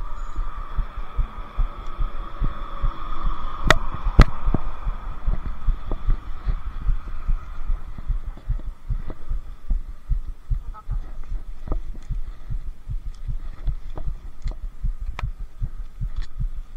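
Handling noise from a body-worn action camera being handled and carried: a dense run of irregular low thumps and rumbles, with two sharp clicks about four seconds in, over a faint steady high hum.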